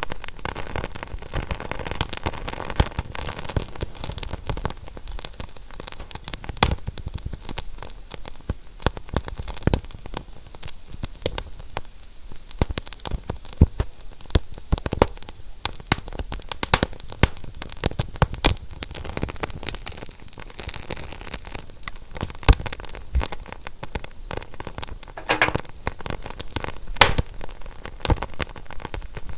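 Wood fire crackling: a steady hiss with many sharp, irregular pops and snaps, and a brief hissing flare near the end.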